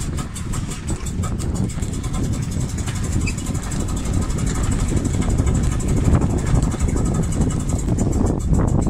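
Wind buffeting the microphone on an open sailboat deck, an uneven, gusty low rumble.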